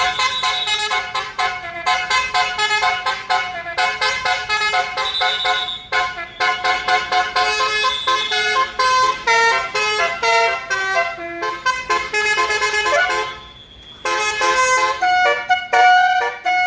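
Tour bus's basuri telolet horn playing a quick tune of short and held horn notes, with a brief break near the end before the tune starts up again.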